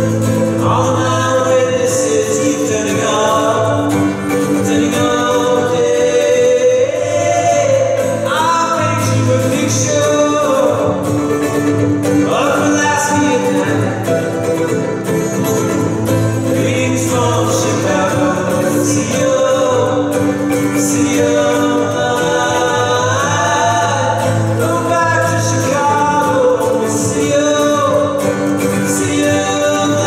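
Live acoustic duet: violin and acoustic guitar playing under two men singing together.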